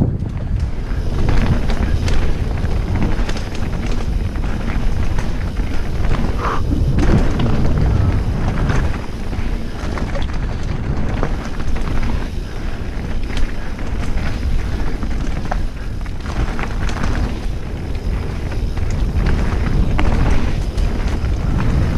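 Wind buffeting a helmet-mounted action camera's microphone as a mountain bike descends a rocky dirt trail, a steady low rumble broken by frequent short knocks and rattles from the tyres and bike over rocks and roots.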